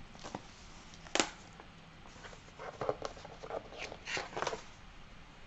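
A hardcover book being handled: one sharp tap a little over a second in, then a run of short paper rustles and clicks as the book and its dust jacket are opened and moved.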